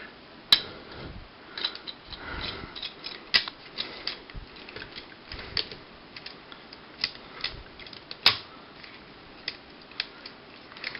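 Plastic toy parts being handled and snapped into place: irregular small clicks and knocks with light rustling, two sharper snaps about half a second and eight seconds in. A bootleg VF-1S Valkyrie transforming toy being worked into robot mode, a tab being pushed into its locking hole.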